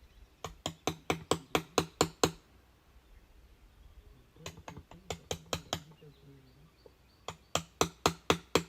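Three runs of quick, sharp blows, about five a second, from a hand tool hacking a recess into the hard wood of an old wooden beehive.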